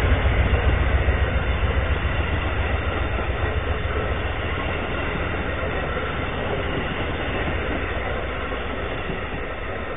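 Amtrak passenger train's stainless-steel coaches rolling past close by: a steady rumble of wheels on rail that slowly fades as the last cars go by.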